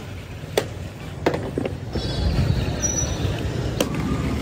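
Street traffic noise: a low rumble and hiss that swells about halfway through as a vehicle goes by, with a few sharp knocks.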